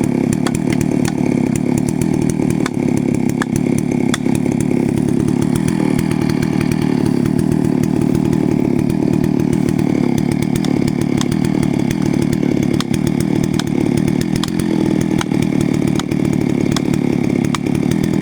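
Chainsaw running steadily at high speed, cutting into a tree trunk, with scattered sharp ticks over the engine note.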